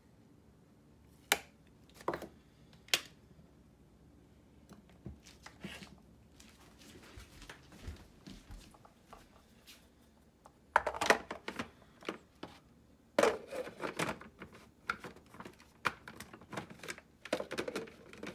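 Kitchen handling sounds: three sharp clicks in the first few seconds, faint rustling, then repeated clattering knocks from about the middle on as ingredients are put into a plastic food processor bowl and its lid is fitted. The food processor motor is not running.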